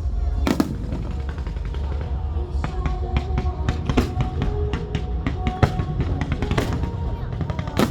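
Fireworks going off in a string of sharp bangs, over music and a low rumble.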